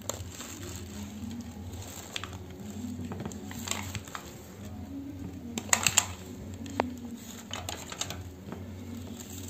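Aluminium foil takeaway tray and plastic bag being handled while momos are moved onto a plate: light crinkles and clicks, with a quick cluster of sharp ticks about six seconds in, over a steady low hum.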